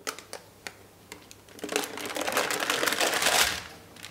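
Baking paper crinkling for about two seconds as a baked gingerbread sheet is handled on it, after a few light clicks.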